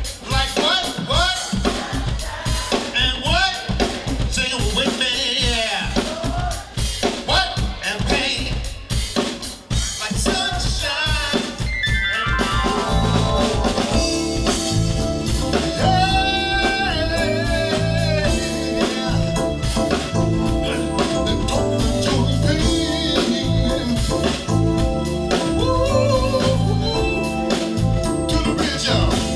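Live band music: a drum kit beat under singing. About twelve seconds in, a falling sweep leads into the full band playing.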